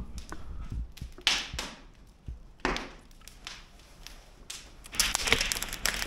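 Gear being handled and packed up: a few short swishes and knocks, a second or so apart. Near the end a wood fire crackles in a stone fireplace, a dense run of pops and clicks.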